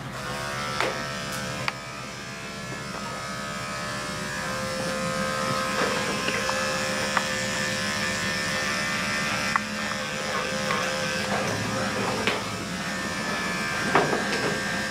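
Electric dog grooming clippers running steadily as they shave a dog's coat, getting louder over the first few seconds, with a few light clicks.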